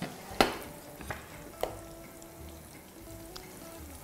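Garlic and onion sofrito frying gently in olive oil, with three sharp clicks of kitchen utensils. The loudest click comes about half a second in.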